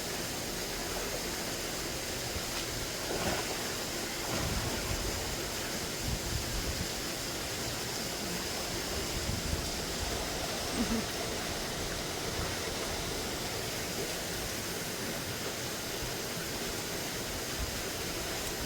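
Steady hiss of falling rain, with a few soft low bumps now and then.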